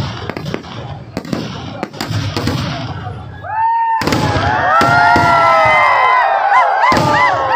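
Fireworks going off: crackling and popping bursts, then from about halfway many whistling fireworks at once, their overlapping whistles rising and falling in pitch.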